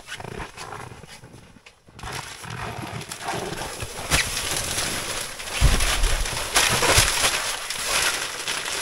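Footsteps and the rustle of nylon bags and tent fabric as gear is carried into a winter tent, with a few dull thumps in the second half.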